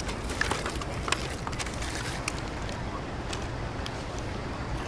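Steady low rumble of city traffic, with scattered light clicks and rustles of plastic food containers being handled and passed across.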